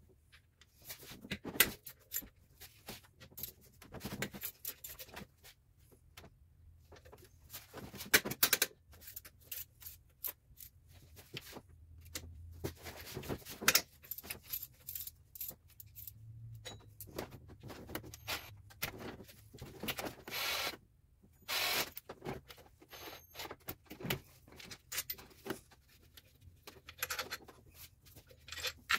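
Metal hand tools clicking, clinking and knocking against engine hardware as the alternator's bolts are undone: a run of irregular sharp clicks and rattles, with a few louder knocks about 2, 8 and 14 seconds in.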